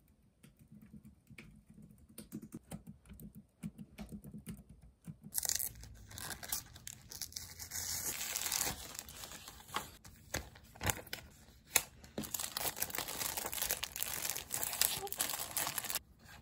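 Light typing clicks on a computer keyboard, then from about five seconds in a paper mailer envelope being torn open along its pull strip, with steady crinkling and rustling of paper as the contents are pulled out.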